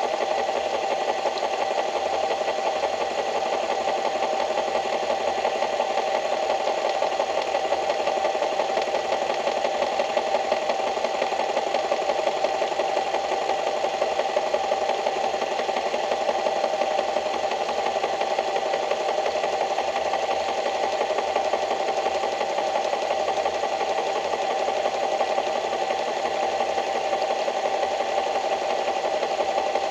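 A small engine or motor running steadily, with a fast even buzz.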